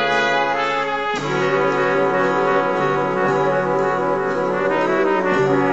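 Background music with brass playing sustained chords, changing chord about a second in and again near the end.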